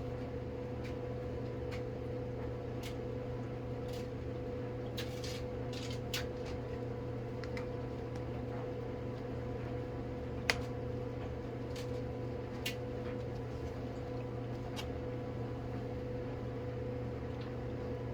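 Steady room hum from a fan or appliance, with scattered light clicks and taps from small plastic containers being handled. The sharpest click comes about ten and a half seconds in.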